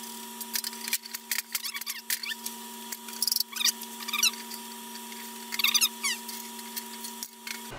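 Aluminium sheet-metal tank parts being handled and fitted together: short squeaks of metal rubbing on metal, with clicks and light knocks. A steady electrical hum runs underneath and cuts off near the end.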